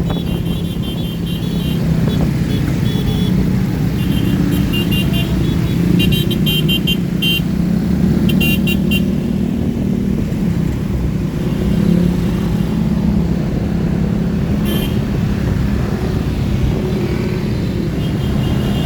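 Motor vehicle engine running steadily with a constant low hum, with short high-pitched bursts coming and going over it.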